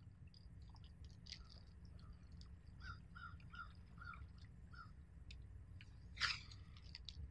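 Faint outdoor ambience with a low steady rumble, and a bird calling about five short, evenly spaced notes a little before the middle. A brief louder noise comes near the end.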